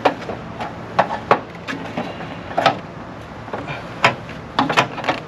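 Car air-intake parts being handled and fitted back into place: a string of sharp, irregularly spaced knocks and clicks, with a quick cluster of them near the end.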